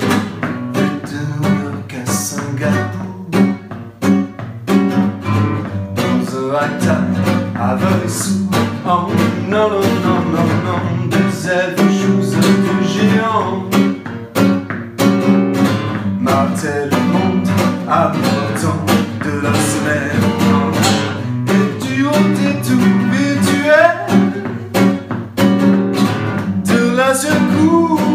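Acoustic guitar strummed and plucked in a steady rhythm, with a man's voice singing over it.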